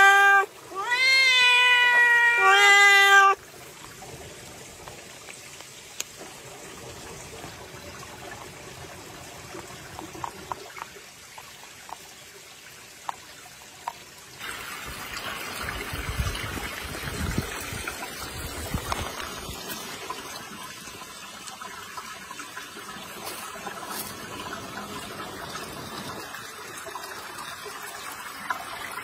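A domestic cat meowing twice in the first few seconds, long drawn-out meows that rise and then fall in pitch. After that it is much quieter with a few small clicks, and about halfway a steady trickle of running water sets in.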